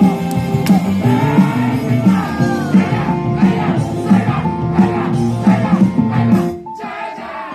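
Rock band playing, a melody line over guitar, bass and drums; the music drops away to a thin, quieter sound about six and a half seconds in.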